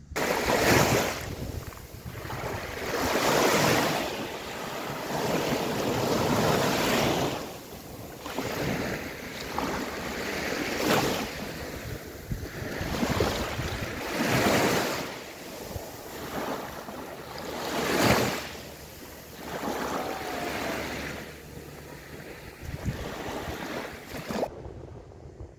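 Small waves breaking and washing up a sandy beach, a rushing wash that swells and ebbs every few seconds. It cuts off shortly before the end.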